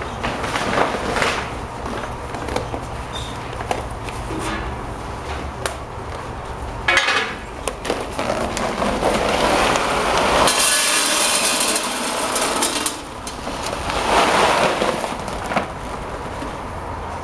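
Irregular knocks, clicks and scraping of hands-on work, with a steady low hum under the first part that stops about seven seconds in.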